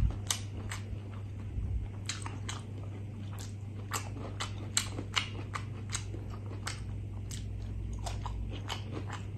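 Close-miked wet chewing and lip-smacking on a mouthful of rice in coconut-chilli gravy, with sharp irregular smacks a few times a second over a steady low hum.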